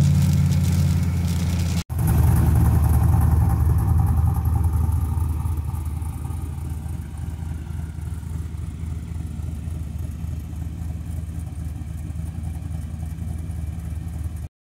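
Turbocharged LS V8 in a Mazda RX-7: first a steady drone heard inside the cabin while cruising at about 54 mph, then, after a brief break, the engine running through its full exhaust with the car standing still. It settles down over the first few seconds into a steady idle with a rapid, uneven pulse.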